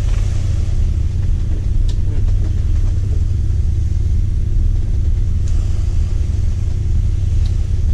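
Shrimp trawler's diesel engine running with a steady, loud low rumble, heard inside the wheelhouse. A couple of faint clicks sound over it, one about two seconds in and one near the end.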